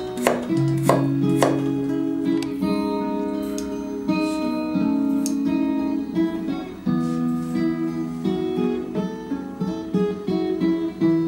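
Background acoustic guitar music. About three cleaver strokes on a wooden cutting board sound in the first second and a half as garlic is sliced.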